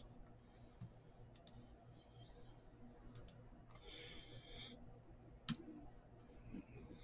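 Computer mouse clicking: a few faint, sharp clicks spread out, the loudest about five and a half seconds in, with a short soft rustle around four seconds in.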